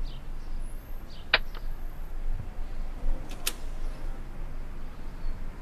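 A door's metal bolt and latch clicking sharply twice, about a second in and again past the middle, as the door is unbolted, over a steady low background rumble.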